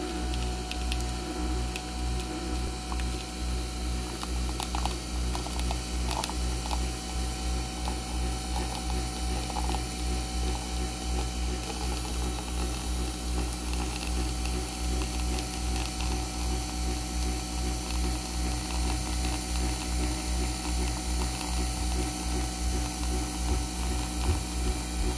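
Nespresso Vertuo coffee machine brewing: a low, rapid buzzing that pulses about three times a second, with a steady whine above it, as coffee streams into the mug.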